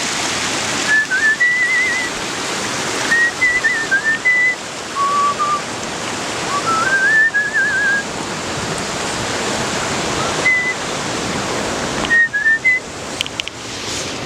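A person whistling a tune in short wavering phrases over the steady rush of flowing water.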